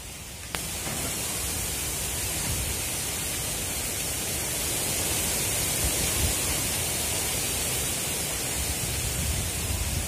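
Steady wind rush on the microphone of a moving motorcycle: a hiss over a low, fluctuating buffeting rumble. The noise steps up suddenly about half a second in.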